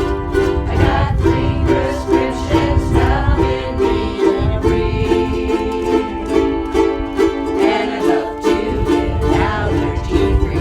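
A group of ukuleles strumming chords together in a steady rhythm, with several voices singing along.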